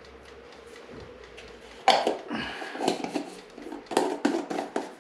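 Kitchen utensils and small containers clinking and knocking at a granite countertop as ingredients are spooned into a saucepan: a quick, uneven series of sharp clicks and knocks starting about two seconds in.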